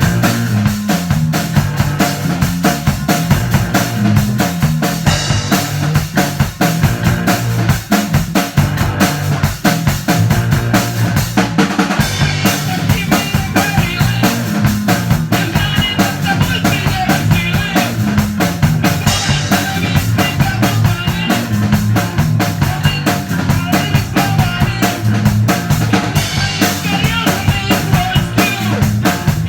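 Rock band playing a song with a steady drum-kit beat of kick, snare and rimshots, under bass and guitars.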